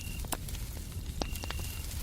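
Wood fire crackling with scattered sharp pops over a steady low white-noise rumble. A cricket's high, steady trill ends just after the start and sounds again for about half a second past the middle.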